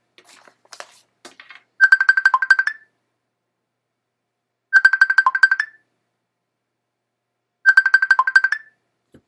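A telephone ringing with an electronic trill: three rings about three seconds apart, each a fast run of beeps lasting about a second. Faint clicks and rustles come in the first second or so.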